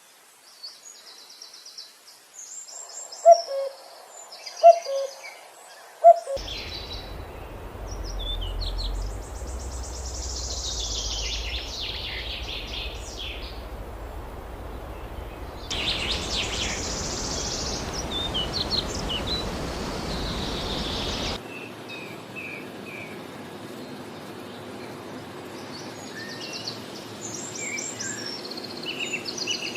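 Wild birds calling: three loud, low hooting calls a few seconds in over high chirps, then whistled and chirping calls over a steady rushing background. The background changes abruptly twice, as between spliced recordings.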